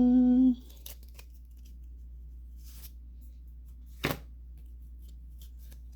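A short hummed note that ends about half a second in, then Pokémon trading cards being handled, with soft sliding rustles and one sharp snap about four seconds in.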